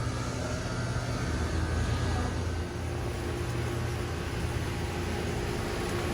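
Outdoor HVAC condensing unit running: a steady hum from the compressor and condenser fan. A second, higher hum tone joins a little before halfway through.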